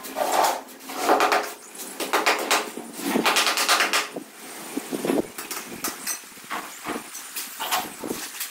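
A steel trowel scraping and tapping against wet cement mortar and the concrete floor, in an irregular run of scrapes and sharp knocks.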